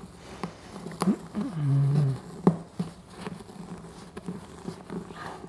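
Strip brush being forced by hand into a tight plastic brush track, giving scattered sharp clicks and snaps, with a strained grunt about a second in.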